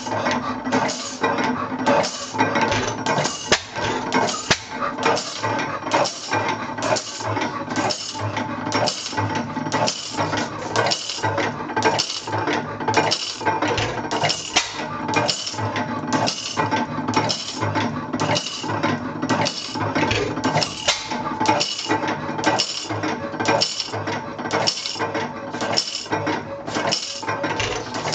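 1898 Deutz petroleum stationary engine running, its valve gear and linkages clattering in a steady rhythm of about three knocks every two seconds.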